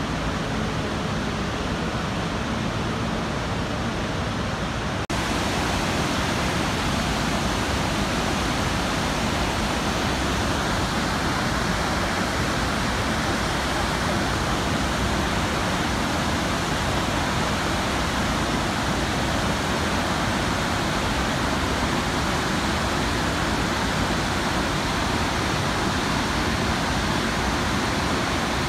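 The Iguaçu Falls cascades rushing in a steady, dense roar. About five seconds in, the sound shifts abruptly and becomes slightly louder and brighter.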